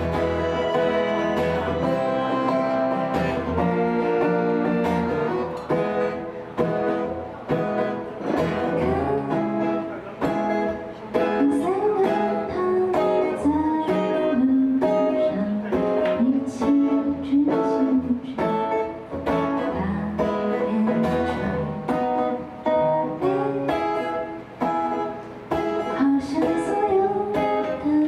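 A live duo of button accordion and acoustic guitar playing a song, the accordion holding sustained chords over the strummed guitar. About ten seconds in, a woman's singing voice comes in over them.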